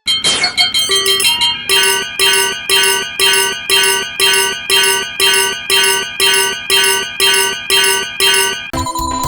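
Japanese railroad crossing alarm bell ringing "kan-kan" in a steady rhythm of about two strikes a second, then cutting off abruptly near the end, where a steady electronic ringing tone takes over.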